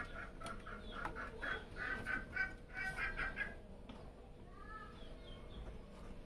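A bird calling in a quick run of short repeated notes, then a couple of rising calls near the five-second mark. Under it are light clicks and rustles of cables being handled inside a PC case.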